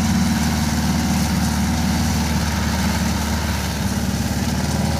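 Mitsubishi engine of a tracked rice-hauling tractor running steadily while the machine drives loaded with sacks of rice.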